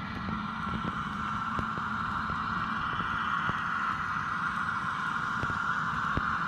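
Fishing boat's engine running with a steady hum and a low rumble, with scattered faint clicks.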